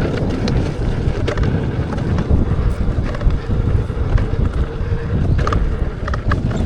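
Wind buffeting the microphone of a rider moving along a dirt trail on an electric unicycle: a steady low rumble with scattered clicks and knocks from the tyre over the ground.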